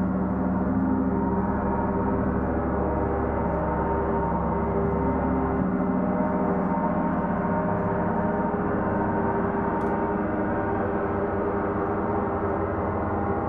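Several large suspended gongs played together as a gong bath: a dense, sustained wash of many overlapping ringing tones at a steady level. The deepest drone thins about halfway through.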